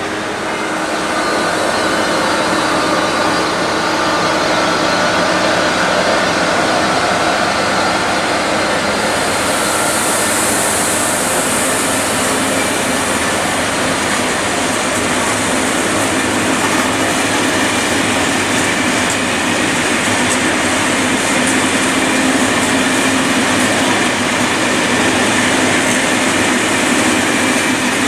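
Train running past on the tracks: a loud, steady rush of wheel and rail noise, with a brighter high hiss for a few seconds about ten seconds in.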